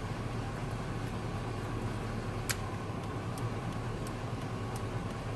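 Truck engine idling with a steady low hum, with a few faint irregular ticks and one sharper click about two and a half seconds in.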